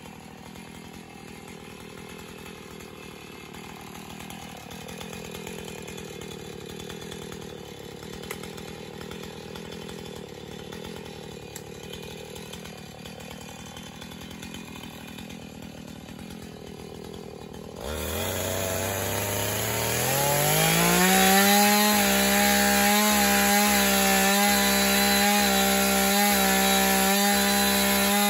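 Two-stroke chainsaw cutting through a fallen log. After a long quieter stretch, the engine comes up about two-thirds of the way in, its pitch climbing over a few seconds to a steady high whine at full throttle.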